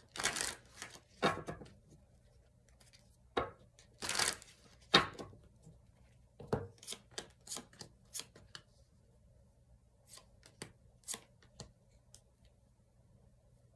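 Tarot cards being shuffled and handled: a few loud swishes in the first five seconds, then a run of lighter clicks and flicks.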